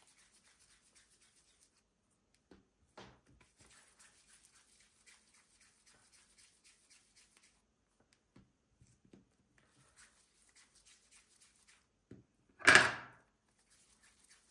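Faint rustling of hands rolling soft dough balls between the palms, with a light knock about three seconds in. Near the end comes a brief loud thump.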